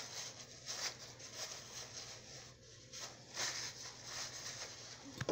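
Quiet room with a few faint, brief rustles and a low steady hum.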